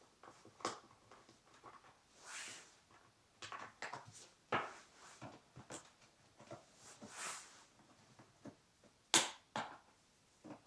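Scattered light clicks and knocks, with two brief rustling hisses and a sharper click near the end, with no engine running.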